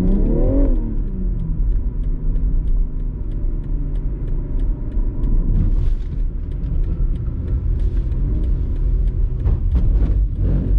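Car engine revving up quickly in the first second, then falling away into a steady low engine and road rumble as the car drives on.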